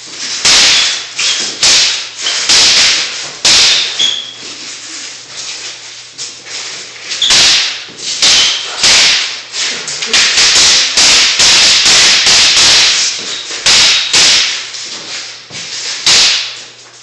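Long wooden sticks cracking together in a stick-fighting sparring bout: a few strikes, a short lull, then rapid flurries of clacks, fastest in the middle.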